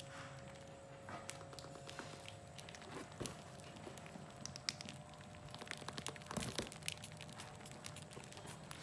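Cardboard crinkling and scraping against the rim of a plastic bucket as it is handled, with scattered small clicks and scratches and a louder rustle about six and a half seconds in. A faint steady hum runs underneath.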